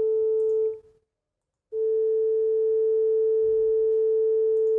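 Online tone generator playing a steady pure sine tone at 439 Hz that stops just under a second in; after a short silence a second sine tone at 441 Hz starts and holds steady. The two tones are a subtle, nearly imperceptible pitch difference apart.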